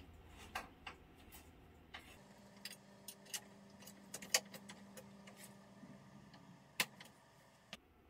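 Scattered light clicks and ticks of a Shimano SLX rear derailleur and tool being fitted by hand to a bicycle's frame hanger, the sharpest about four and a half seconds and about seven seconds in, over a faint steady hum.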